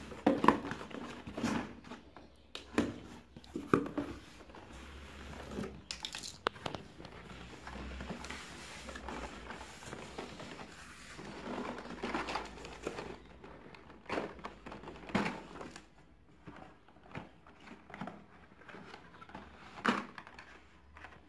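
Cardboard shipping case being handled and opened by hand: flaps and packing tape rustling and crinkling, with scattered sharp clicks, then plastic blister-carded toy cars sliding and rattling as they are pulled out near the end.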